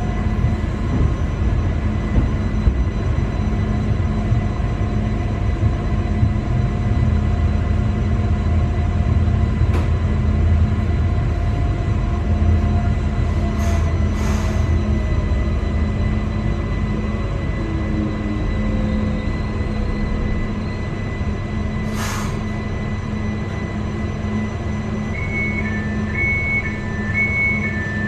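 Steady hum and rumble of the onboard equipment inside a Newag Impuls 2 electric multiple unit standing at a station. A whine slowly falls in pitch midway, with a few sharp clicks, and an alternating two-tone beeping starts near the end.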